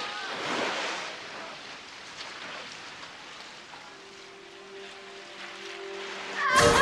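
Small waves washing onto a sandy beach, strongest in the first second and then settling. A faint steady low tone comes in about four seconds in, and a sudden loud burst of sound breaks in just before the end.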